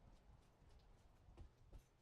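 Near silence: a faint low rumble with a few soft clicks.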